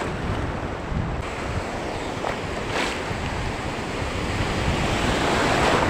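Wind buffeting the microphone over the wash of sea waves, a steady rushing noise that swells louder near the end.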